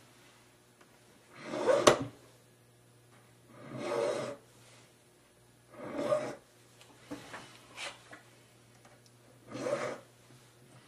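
Fine No. 4 cut barrette file rasping across the outside of a ring shank, taking off excess solder: four separate strokes a couple of seconds apart. A sharp click ends the first stroke, and a few light ticks fall between the third and fourth.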